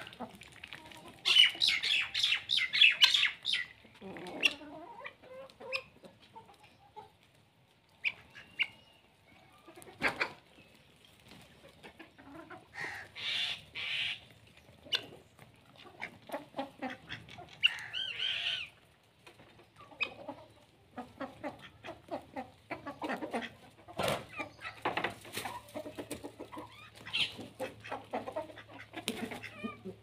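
A flock of free-range chickens clucking and calling on and off, with a loud run of calls about a second in.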